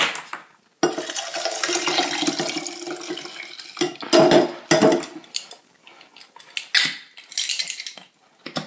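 A cocktail poured from a stainless-steel shaker over crushed ice into a tall glass: a continuous splashing pour for about three seconds. It is followed by several sharp metallic knocks and clinks from the shaker.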